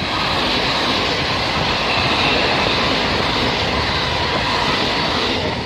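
A train running past on the line, a steady loud rush of wheels on rail.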